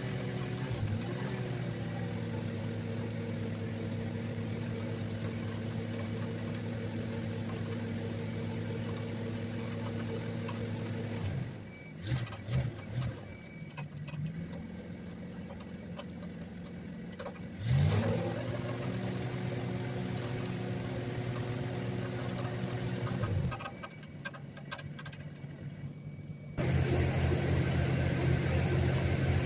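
An engine running steadily, cutting out about eleven seconds in, with a few short bursts after. It starts again with a rising pitch around eighteen seconds, runs steadily and stops again near twenty-four seconds. A louder, deeper engine sound comes in suddenly near the end.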